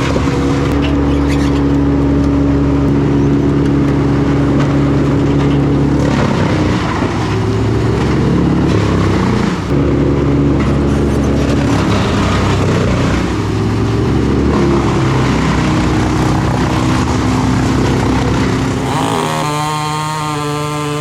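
Large engine of heavy tree-removal machinery running steadily at a constant note, which starts to shift up and down about six seconds in. Near the end a different, higher engine note takes over and wavers.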